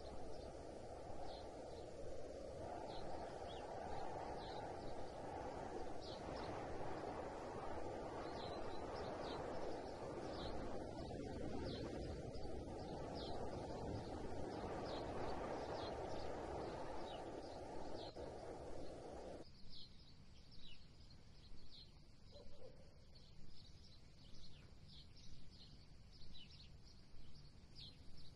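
A bird chirping over and over: short, high chirps about once a second or a little faster, over a steady low noise that drops away abruptly about two-thirds of the way through.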